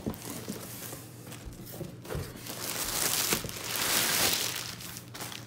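Clear plastic liner crinkling and rustling as hands pull it back inside a cardboard box. The rustling grows loudest in the second half.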